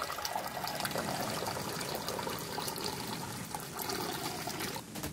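A stream of water pouring steadily into a pot around lidded glass jars, splashing as the water bath fills. The pouring stops right at the end.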